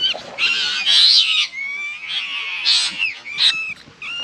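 Young rats squealing in a wire-mesh cage trap: a string of high-pitched squeals and squeaks, one drawn out for about a second and a half in the middle.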